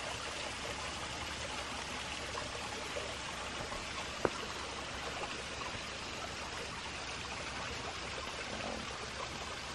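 Steady rush of flowing stream water, even throughout, with a single short click about four seconds in.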